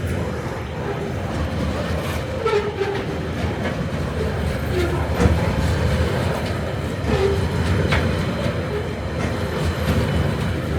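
Loaded coal train running past: a steady low rumble of wheels on rail with irregular sharp clicks.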